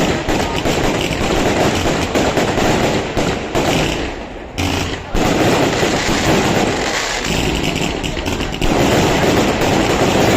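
Fireworks display going off in a rapid, dense string of bangs and crackles, with a brief lull a little under halfway through before the barrage picks up again.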